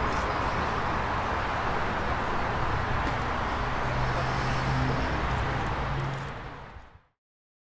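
A car's engine, faint under steady street and traffic noise, after the loud engine sound drops away at the start. The sound fades out and cuts to silence about a second before the end.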